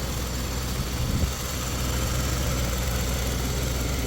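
Older used car's engine idling steadily, with a brief louder bump about a second in; the engine runs noticeably rather than quietly.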